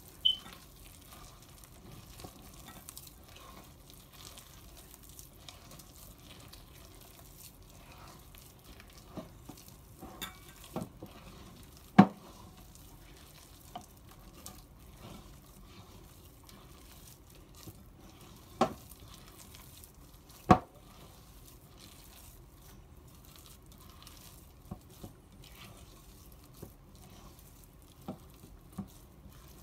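Hand kneading and squeezing a soft, sticky yeast dough in a bowl: faint wet squishing and crumbling, broken by a few sharp knocks.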